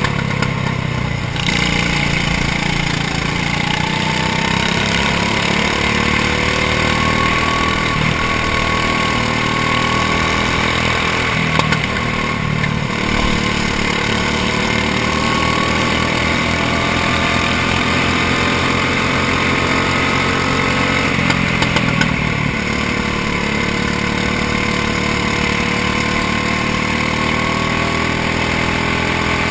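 Go-kart engine heard onboard, running hard through a race: its pitch climbs slowly for long stretches and falls back as the kart slows, about two-thirds of the way in. A couple of brief knocks come in the middle and again about three-quarters of the way in.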